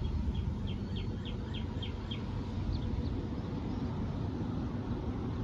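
A songbird singing a run of short, down-slurred whistled notes, about three a second, that pauses and starts again about three seconds in, over a steady low rumble.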